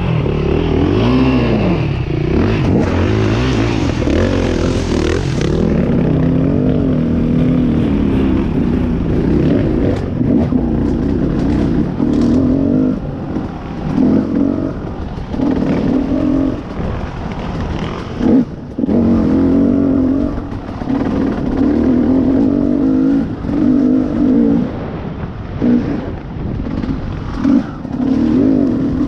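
Off-road dirt bike engine running along a trail, the throttle rising and falling so the pitch goes up and down, with a few short knocks and clatters from the bike.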